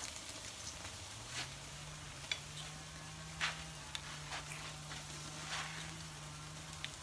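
Oysters and clams sizzling on a charcoal grill, a soft steady hiss with a few sharp clicks scattered through it. A faint steady low hum comes in about a second in.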